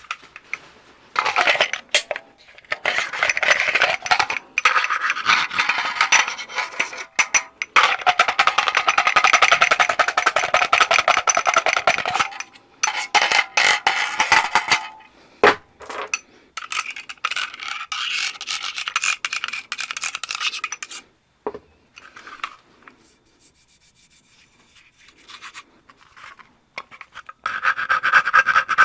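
H&K USP40 pistol handled rapidly and roughly: dense runs of metal-and-polymer clicks, clacks and rattles from its slide, magazine and other moving parts, in several long bursts with short gaps and a quieter spell about two-thirds of the way through.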